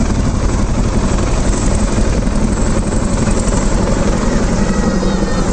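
Low formation of military helicopters, a tandem-rotor CH-47 Chinook flanked by AH-64 Apaches, passing overhead: a loud, steady rotor chop and turbine drone.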